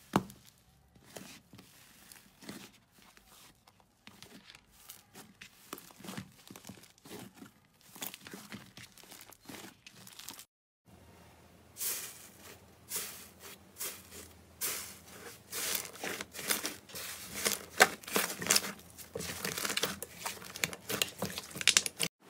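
Hands squeezing soft, thick slime, with faint sticky clicks. After a short break, fingers press through the thin dried crust of an iceberg slime, giving dense crackling and crinkling that grows louder in the second half.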